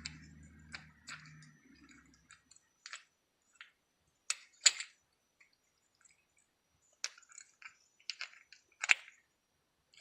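Scattered sharp clicks and clinks of hand tools and parts being handled in a car's engine bay while the alternator's mounting bolt is being worked loose, the loudest about halfway through and again near the end.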